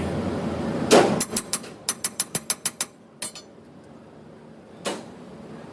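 Mechanic's tool work on a car's stabilizer link: a loud knock, then a quick run of sharp mechanical clicks at about five or six a second, and another knock a couple of seconds later.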